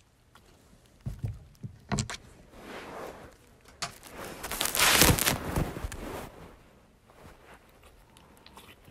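A few soft knocks, then a loud rustling scrape about four to six seconds in, fading away after: handling noise from the phone as it is moved.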